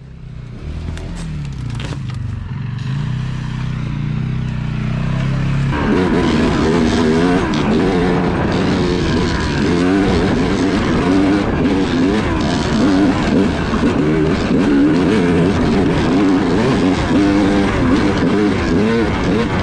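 Yamaha YZ250X two-stroke dirt bike engine, running at low revs for the first few seconds and then, about six seconds in, revving up and down again and again as the bike is ridden along the trail.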